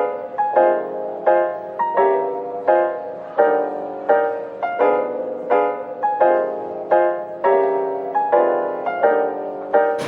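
Background music: a gentle piano playing evenly repeated chords, about one every two-thirds of a second.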